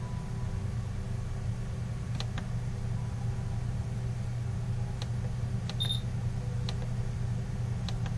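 Computer mouse clicking about six times over a steady low hum, with one short high beep about two thirds of the way through.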